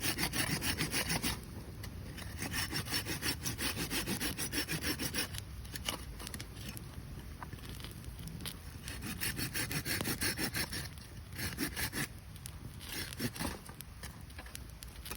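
Firewood being sawn by hand: runs of rhythmic rasping strokes broken by short pauses.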